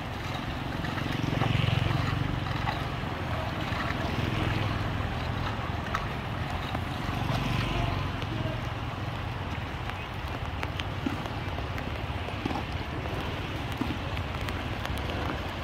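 Shallow muddy rainwater running steadily into a street storm-drain culvert, with wind on the microphone and motorbikes passing on the wet road, loudest about two and about eight seconds in.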